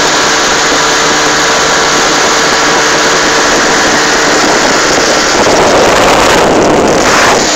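Small boat's outboard motor running steadily at speed, with rushing water and wind noise. About five and a half seconds in, a louder rush of noise rises over the engine for a couple of seconds.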